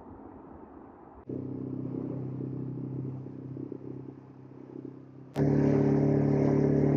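An engine running steadily with a low, even hum. It cuts in suddenly about a second in, and a louder, steady engine hum cuts in about five seconds in.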